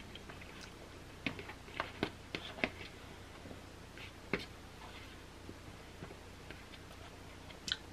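Quiet eating sounds: a quick run of small clicks and taps a second or so in, a single sharper click past the middle and another near the end, over a faint steady low hum.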